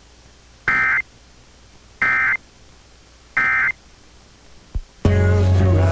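Emergency Alert System end-of-message (EOM) data bursts: three short, buzzy two-tone digital chirps a little over a second apart, the 'NNNN' code that closes an EAS alert. About five seconds in, the radio station's music cuts back in.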